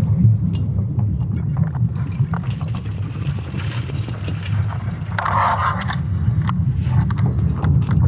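ESA's sonification of Earth's magnetic field, made from Swarm satellite data: a steady deep rumble with scattered crackles and clicks, and a brief noisy rush a little past five seconds in.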